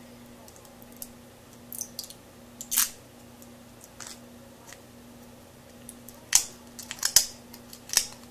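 A small glass dropper bottle being handled, fingertips picking at its cap and neck: scattered sharp clicks and crackles, a few at first and then a quick cluster in the last two seconds, over a faint steady hum.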